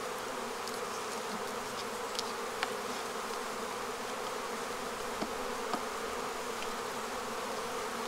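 Honeybees buzzing steadily in a dense hum over an open hive, with a few faint ticks.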